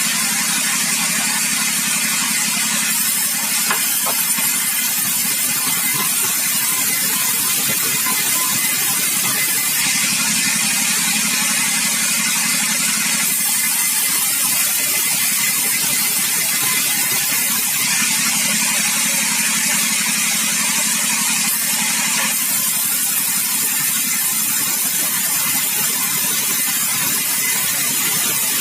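Sawmill running, with a steady engine drone and a loud saw hiss. The high hiss brightens for a few seconds at a time, twice.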